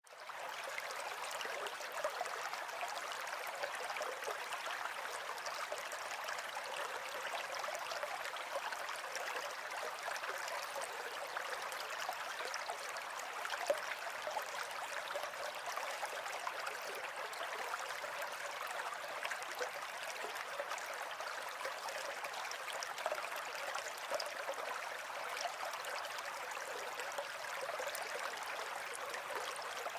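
Natural running water flowing with a steady, unbroken rush, fading in at the very start.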